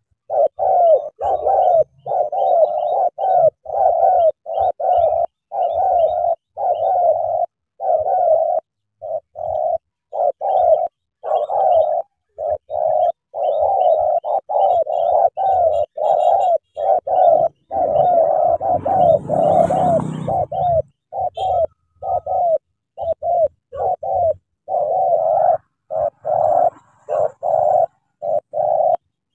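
Spotted doves cooing over and over, about two short coos a second with only brief breaks. A noisy rustle lasts a few seconds about two-thirds of the way through.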